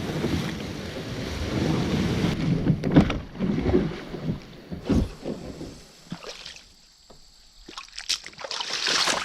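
Outdoor gear being handled: rustling and rumbling handling noise with a couple of sharp knocks, about three and five seconds in, then a quieter spell with small clicks and another rustle near the end.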